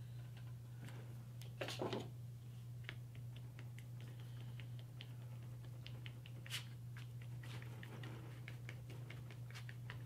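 Faint paper handling and a glue brush dabbing and scratching over torn paper strips: a soft rustle about two seconds in, then a run of small ticks and scratches, over a steady low hum.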